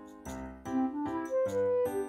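Background music: a melody of pitched notes climbing over chords.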